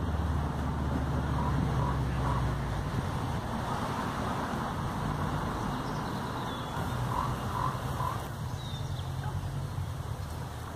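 Outdoor park ambience: a passing vehicle's low rumble that fades out about three seconds in, over steady distant traffic noise. A bird calls in short groups of three notes twice, with a few faint higher chirps.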